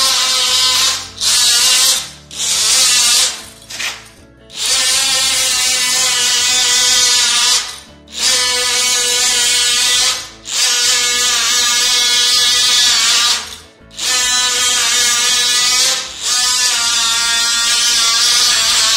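DeWalt cordless oscillating multi-tool running with its blade cutting into the wood under the edge of the floorboards. It makes a loud, steady, high buzzing whine that stops for a moment every few seconds and cuts off at the end.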